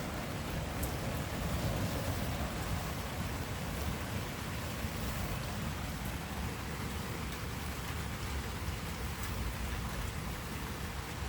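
Steady rain falling, with a low rumble underneath and a few faint drop ticks.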